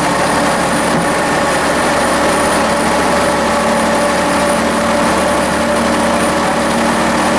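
Vintage railcar running along the line, heard from inside its driver's cab: a steady engine drone and running noise with a constant hum, unchanging throughout.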